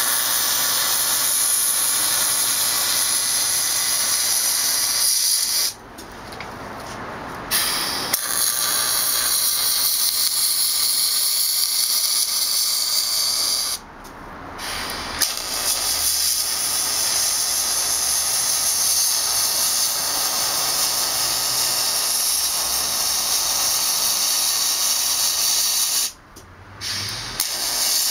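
Electric welding arc on an aluminum wheel, a steady hissing sizzle laid down in runs. It stops briefly about six seconds in, again around fourteen seconds, and near the end.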